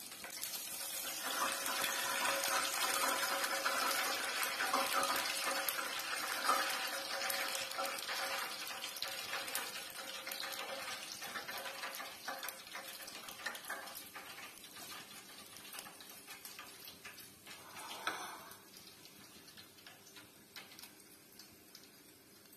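Battered chicken pieces deep-frying in hot ghee in an aluminium pan: a dense sizzle full of fine crackles, loud at first and dying away toward the end, with a brief flare-up of sizzling about eighteen seconds in.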